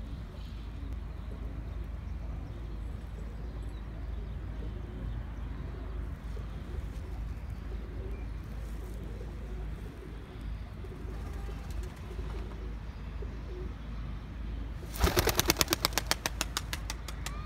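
A Sialkoti pigeon taking off and flying away, its wings clapping in a rapid run of about nine beats a second that starts sharply near the end and fades over about two seconds. Before that there is only a steady low rumble.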